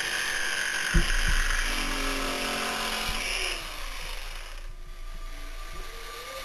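Corded electric jigsaw running as it cuts through plywood, with a sharp knock about a second in. The saw sound fades down a little past halfway, leaving a quieter steady hum.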